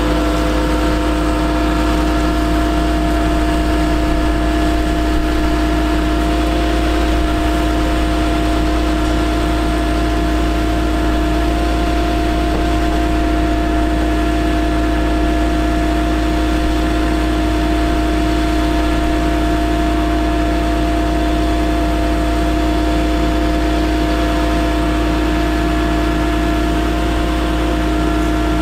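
Caterpillar C7 diesel engine of a bucket truck running steadily, powering the hydraulics while the aerial boom moves. It makes an even drone with a constant hum over it and no changes in speed.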